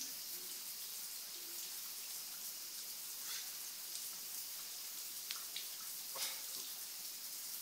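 Shower spray running steadily, an even hiss of water, with a few short clicks partway through.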